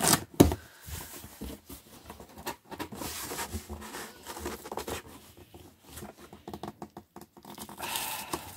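Cardboard shipping box being opened by hand: cardboard scratching and rustling as the tape is pulled and the flaps are pried open. A few sharp knocks in the first half-second are the loudest part.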